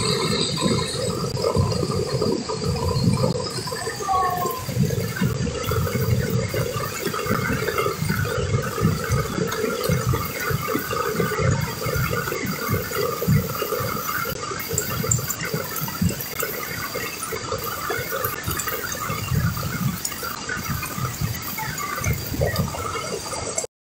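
Rushing floodwater torrent, a steady churning roar of fast-moving water with an uneven low pulsing beneath it; it cuts off abruptly near the end.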